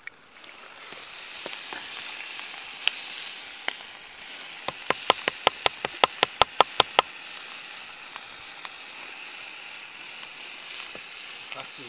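Sliced potatoes and bacon frying over a campfire: a steady sizzle. A little under five seconds in, a quick run of about fifteen sharp clicks, some six a second, lasts about two seconds.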